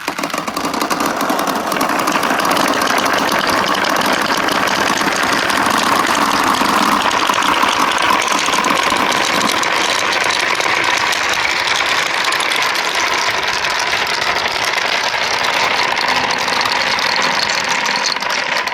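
Many marbles rolling and clattering down a marble run's tracks in a dense, continuous rattle, starting right after release.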